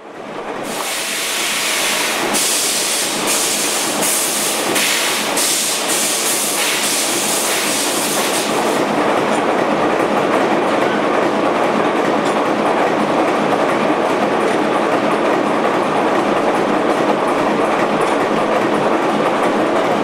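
Large vertical multi-cylinder stationary engine, direct-coupled to a generator, being started on compressed air. A loud hiss of starting air comes in pulses for about the first eight seconds. Then the hiss stops and the engine runs steadily on its own.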